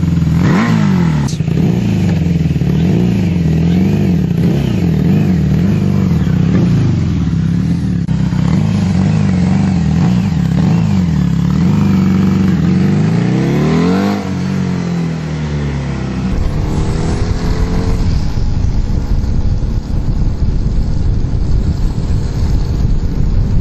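Engine of a custom-built red Vespa scooter being revved again and again, its pitch rising and falling about once a second. About 14 seconds in it climbs once more and drops as the scooter pulls away, then runs on steadily under a rushing noise.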